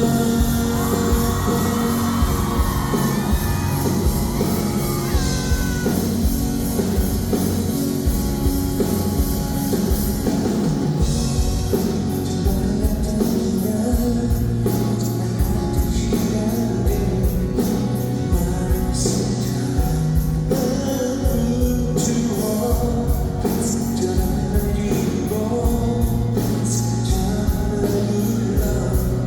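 Live rock band music with a steady drum beat, and a voice singing over it for the first few seconds.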